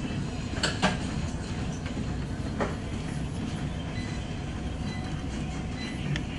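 Steady low mechanical rumble of gym cardio machines such as elliptical trainers in use, with a few sharp clicks and knocks, two of them close together about a second in and another at about two and a half seconds.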